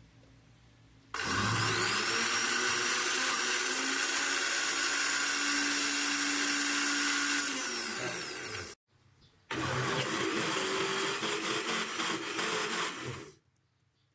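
Electric kitchen blender running in two bursts: a long run of about seven seconds that winds down before a brief stop, then a second run of about four seconds that cuts off.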